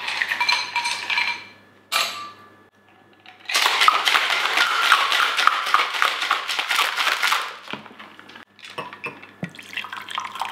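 Ice cubes clinking as they are dropped into a stainless steel cocktail shaker, then the shaker shaken hard for about four seconds with a dense, steady rattle of ice against metal. Near the end the drink is poured out of the shaker into a glass.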